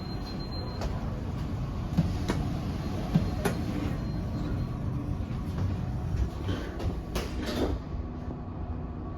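Schindler marine traction elevator running: a steady low rumble with several sharp knocks and clicks, two of them close together near the end.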